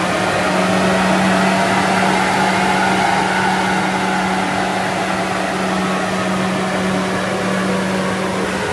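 Rolls-Royce Ghost Series II's 6.6-litre 60° V12, with a modified exhaust, running on a chassis dyno and held at a steady engine speed as a constant drone.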